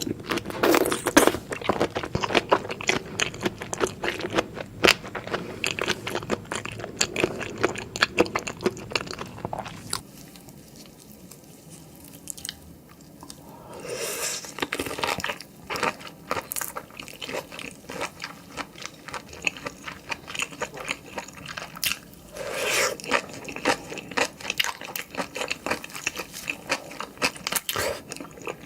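Close-miked eating sounds: biting and chewing soy-sauce-marinated raw shrimp, with crackling, crunchy strokes of teeth through shell and wet chewing. It goes quieter for a few seconds about a third of the way in, then the crunching and chewing pick up again.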